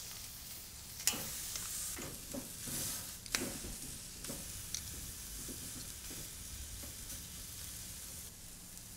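Picanha (rump cap) sizzling fat-side on a hot stainless steel grill grate over charcoal and wood, a steady quiet sizzle broken by a few sharp crackles.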